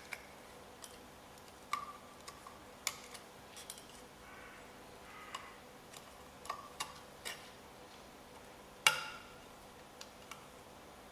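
Large drill bit turned by hand against the back of freshly drilled holes in thin aluminium sheet, deburring them: faint, irregular metallic clicks and short scrapes, with one sharper click about nine seconds in.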